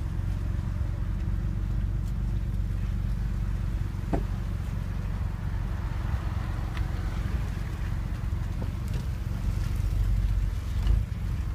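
Steady low engine rumble of a vehicle idling, heard from inside a car, with a faint click about four seconds in.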